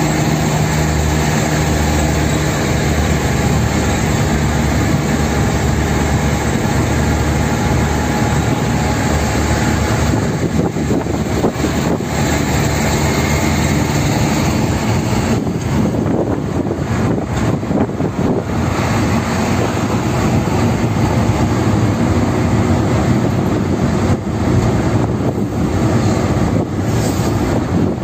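Car driving at speed on a highway, heard from inside the cabin: steady engine hum with road and wind noise. A low drone is clear in the first ten seconds or so, after which a rougher rumble of road noise takes over.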